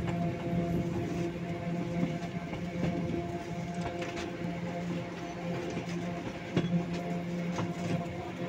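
The Train Jaune, an electric metre-gauge train, running along the line, heard from its open carriage: a steady hum with several held tones, and irregular clicks and knocks from the wheels on the track.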